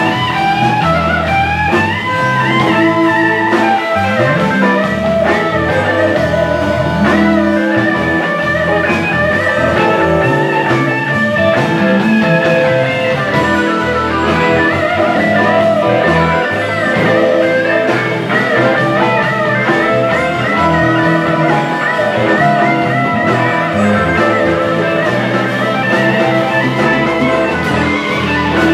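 Live blues band playing an instrumental passage: electric guitars over bass and drums, with a harmonica played into the vocal mic.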